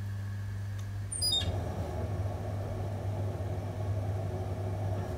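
Potter's wheel running with a steady low hum, joined about a second in by the wet rubbing of hands squeezing a spinning clay pot, with a brief high squeak as it starts.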